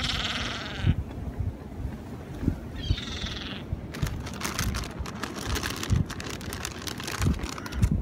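Gulls calling: a call of about a second at the start and a shorter one about three seconds in, over wind thumping on the microphone. From about four seconds in, a dense run of crackling, rustling clicks.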